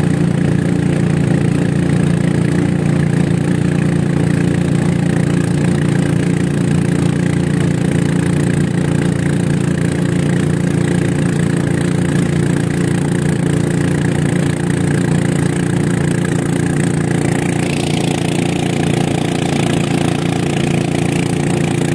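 An engine running steadily at an even pitch, with a hiss joining in for the last few seconds.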